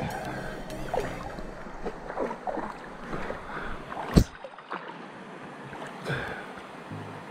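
Shallow stream water splashing and trickling around wading feet and a hand net being lifted out dripping, with one sharp knock about four seconds in.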